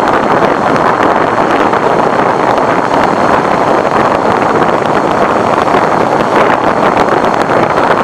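Wind rushing over the microphone of a hand-held camera on a moving motorbike: a loud, steady rushing noise that does not change.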